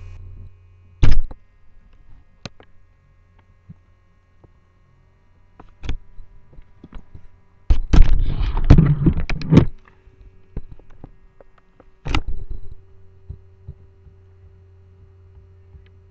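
Steady low electrical hum, broken by sharp thumps and knocks from a Yorkshire terrier jumping about and tugging at his lead. About eight seconds in comes a loud two-second burst of scuffling and rustling as he pulls on the lead.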